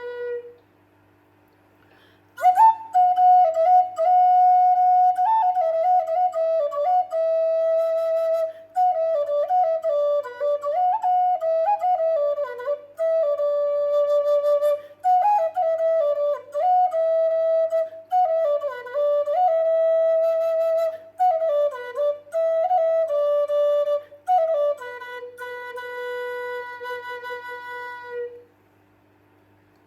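Solo flute playing a lively melody with quick ornamented runs, starting about two seconds in and ending on a long held lower note near the end.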